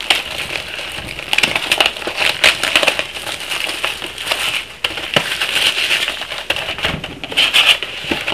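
Clear plastic shrink wrap crinkling and tearing as it is stripped off a sealed cardboard box of trading cards, a dense, unbroken run of crackles.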